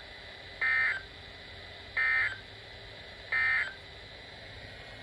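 Three short bursts of warbling Emergency Alert System data tones, each about a third of a second long and a little over a second apart: the SAME end-of-message signal that closes an alert.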